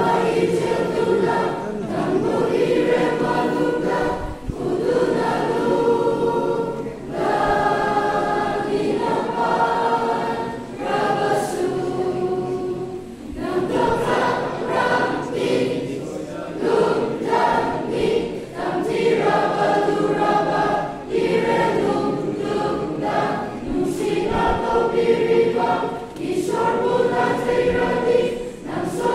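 Sunday school choir of children and young women singing. The song goes in phrases of held notes a few seconds long, with brief breaks between them.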